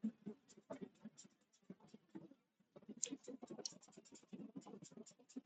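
Faint, irregular clicks of computer keyboard keys being typed, sparse at first and coming in a quicker run from about three seconds in.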